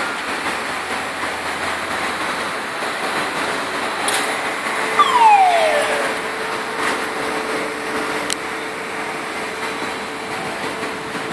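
Steady mechanical noise of container-terminal machinery, with a sharp click about four seconds in, a falling squeal about five seconds in that is the loudest moment, and a steady hum that sets in at about the same time and holds. Another click comes about eight seconds in.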